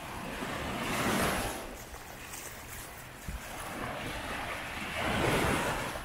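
Sea waves breaking and washing up the beach, the surf swelling twice about four seconds apart, with wind rumbling on the microphone.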